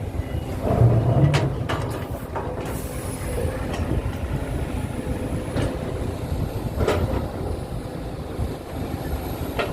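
Radio-controlled model excavator and dump truck at work: a steady low rumble with scattered sharp clicks and knocks, and a faint high whine in the middle.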